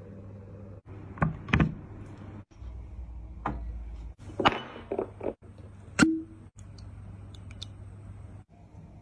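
A string of sharp knocks and clicks from bottles and glassware being handled, the loudest about six seconds in with a brief ringing clink like glass, over a low steady hum.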